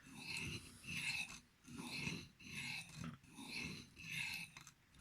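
Knife blade of 12C27 steel stroked back and forth across an Arkansas sharpening stone, an even run of short rasping strokes, about one and a half a second. The even stroke means the stone is now cutting properly and the blade is not catching.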